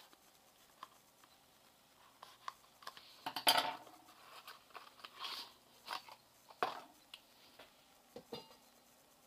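Plastic blister packaging being cut with a knife and pulled open by hand: scattered clicks with crackling and rustling, loudest a little over three seconds in.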